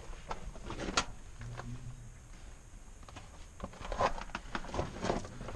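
Irregular footsteps scuffing and crunching on loose rock and gravel in a mine tunnel, with scattered sharp knocks, the loudest about a second in and around four seconds in. A brief low hum is heard twice.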